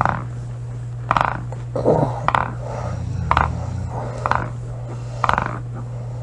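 A woman snoring over a steady low hum, with slower low swells every few seconds. Short rasping calls repeat about once a second and are the loudest sound.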